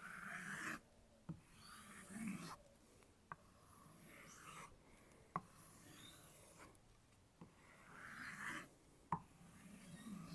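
Knife blade being stropped on a kangaroo-tail leather strop: soft rubbing strokes about every second and a half, with light ticks between them as the blade turns over.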